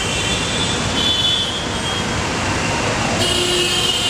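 Steady din of busy road traffic, engines running and passing, with a thin high whine that grows louder about three seconds in.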